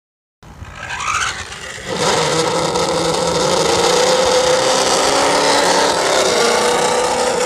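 A vehicle's motor running: it builds briefly over the first two seconds, then holds a steady, high, slightly wavering pitch.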